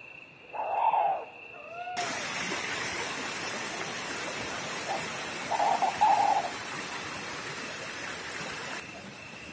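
Owl hooting: one hoot about a second in and another around the middle, with a short rising-and-falling call between them, over a steady high insect trill.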